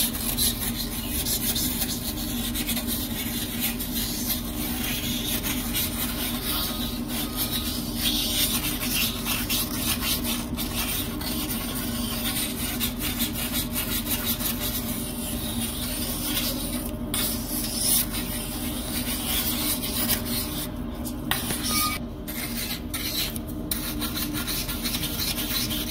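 Pumice stone scrubbing a hard-water ring off a porcelain toilet bowl: continuous scraping of stone on porcelain, stroke after stroke, as the stone wears the stain away.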